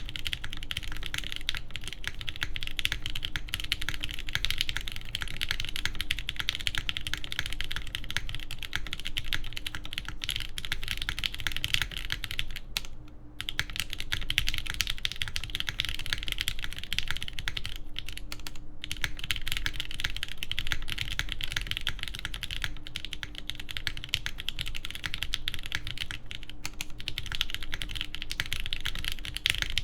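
Continuous fast typing on a TGR Jane v2 ME top-mount mechanical keyboard with lubed JWK Banana Splits switches, a carbon fiber half plate and JTK keycaps. The keystrokes pause briefly twice, about 13 and 19 seconds in.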